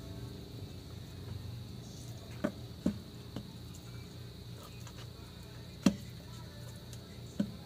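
Hands kneading and lifting a floury cake mixture in a large plastic basin, with a few sharp knocks against the basin, the loudest about six seconds in, over a steady low hum.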